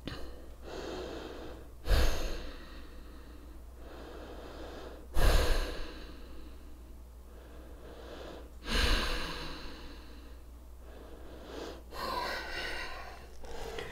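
A woman breathing deeply and audibly: four strong breaths, each starting suddenly and fading over about a second, roughly three and a half seconds apart, with quieter breathing between.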